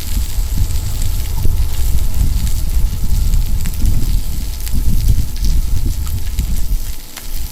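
Strong gusting wind buffeting the microphone in a heavy low rumble, over the faint sizzle of a pork tomahawk cooking on a grill; the wind eases about seven seconds in.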